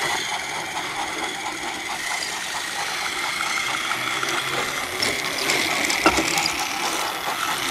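Battery-powered Trackmaster toy engine running slowly along plastic track, its small motor and gears whirring with a fine steady ticking; the batteries are nearly flat. A sharp click comes about six seconds in.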